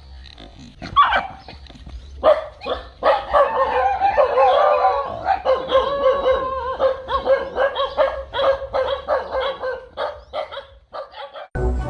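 Dogs barking and yelping in rapid, frantic volleys, sparse at first and then nearly nonstop from about three seconds in: alarm barking at a fake tiger swung at them.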